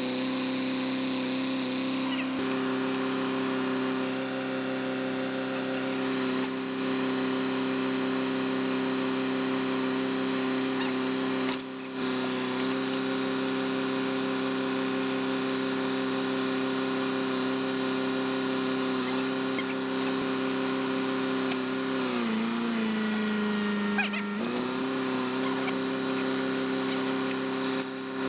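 Drilling rig's engine and hydraulic drive running at a steady pitch. About 22 seconds in, the pitch sags for a couple of seconds as it takes load, then comes back up.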